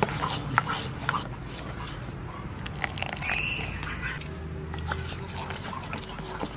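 Wire whisk beating thick cake batter in a stainless steel bowl, with quick irregular clicks of the whisk's wires against the bowl as milk is worked in. A short high animal call comes about halfway through.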